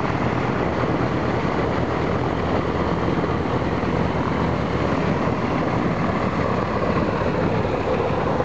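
Ilyushin Il-14's Shvetsov ASh-82T radial piston engine running steadily, turning its propeller, on its first run after years of standing idle.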